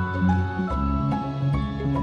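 Background music: gentle new-age instrumental with sustained chords over a bass line.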